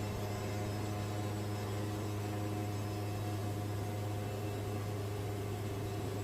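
Wood-Mizer band sawmill running steadily: an even, low mechanical hum with no change in pitch or level.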